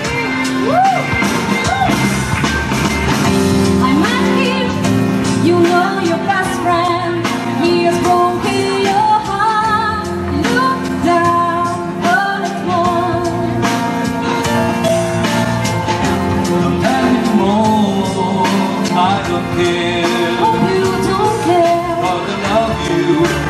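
A song performed live: a woman singing into a handheld microphone over instrumental accompaniment.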